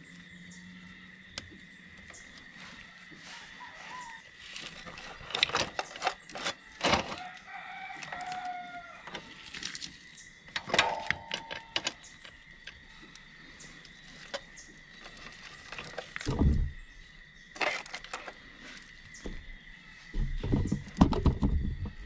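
A rooster crowing twice, about seven and eleven seconds in, among scattered sharp clicks and knocks, with a few low thuds near the end.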